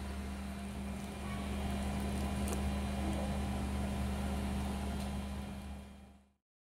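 A steady low machine hum with a few faint clicks, fading out about six seconds in.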